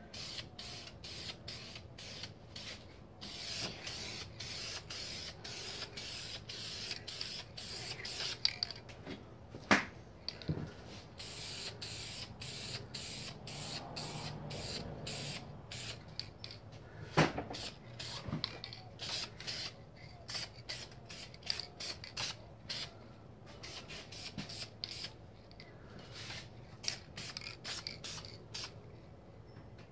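Aerosol spray can of clear coat hissing in many short bursts and a few longer passes over a motorcycle helmet. Two sharper knocks stand out partway through.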